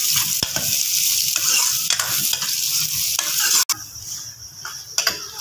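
Sliced onions sizzling in hot ghee while a steel ladle stirs them, scraping against the metal pot, as they start to turn light brown. The sizzle drops off suddenly about three and a half seconds in, leaving a quieter fry with a couple more scrapes.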